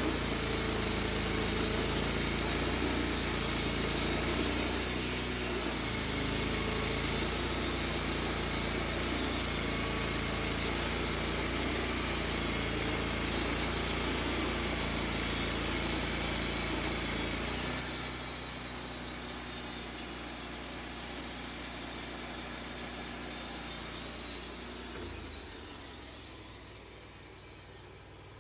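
Engine-driven mobile sawmill running steadily while milling a log. About two-thirds of the way through it drops to a quieter, lower run, and it dies down near the end.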